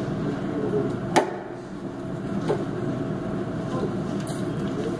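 Small clicks from shims and a door hinge being handled: one sharp click about a second in, a softer one a little later and a faint one near the end, over a steady background hum.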